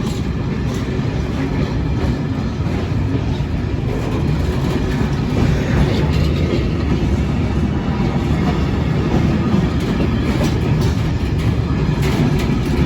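Engineers' freight wagons behind a Class 66 rolling past close by, a steady heavy rumble with wheels clacking over the rail joints.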